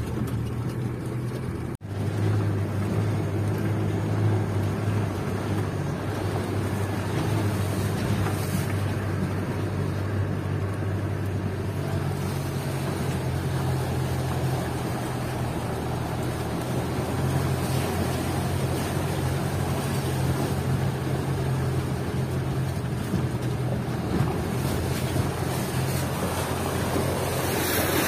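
Land Rover Defender's diesel engine droning steadily, heard from inside the cabin while driving off-road, its pitch stepping up about twelve seconds in as the revs rise. Near the end a rush of mud and water thrown up by the wheels joins the engine.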